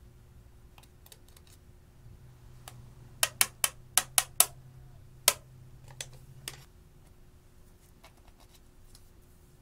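A quick run of about six sharp clicking taps, then one more and two lighter ones: a plastic eyeshadow palette being knocked to shake crumbled eyeshadow out into a glass bowl.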